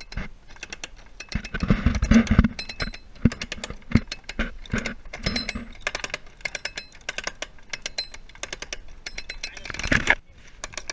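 Rapid, irregular metallic clicking and clinking with short ringing notes, and heavier knocks about two seconds in and again near the end.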